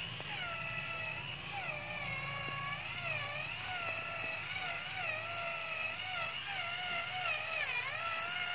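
Electric motor and gearbox of a radio-controlled model truck whining, its pitch rising and falling over and over as the throttle changes.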